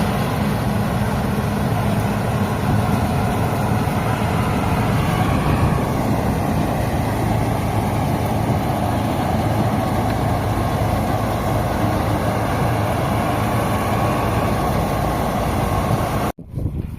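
Diesel farm machinery, a tractor with a harvester, running steadily at working speed. The sound cuts off suddenly near the end.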